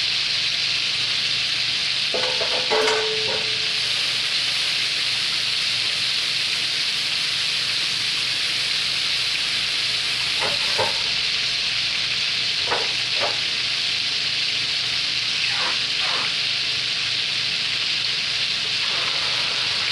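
Battered chicken breast tenderloins frying in a skillet of hot oil, with a steady sizzle.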